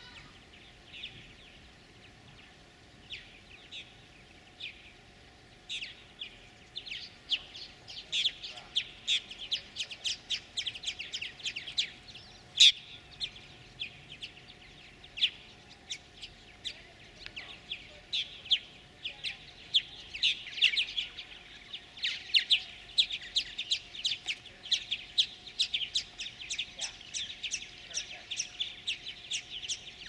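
Purple martins chirping: many short, rapid chirps, scattered at first and becoming dense and continuous from about eight seconds in.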